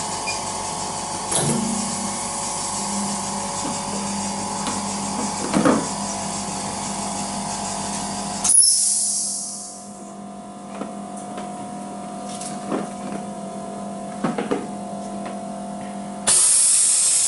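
Pulse hot-bar flex press running a bonding cycle: a steady electrical hum with a whine and a few light clicks, a short hiss about eight and a half seconds in, then a quieter hum. Near the end a loud steady hiss starts as the hot bar begins to cool.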